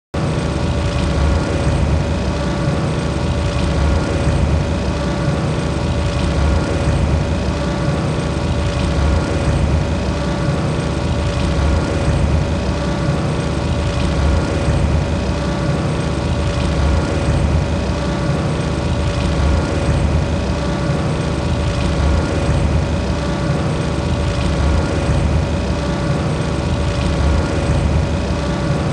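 Hailfire droid engine-drive sound effect: a steady, heavy mechanical drone with a deep low rumble and a held whining tone over it, played as a continuous loop.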